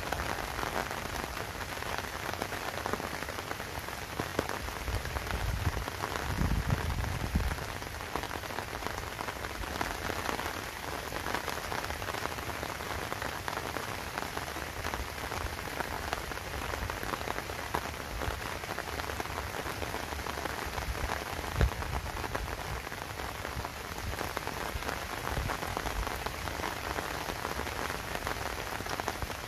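Steady rain falling, an even hiss of many drops. A brief low rumble swells about six to seven seconds in, and a single sharp tap stands out a little past twenty-one seconds.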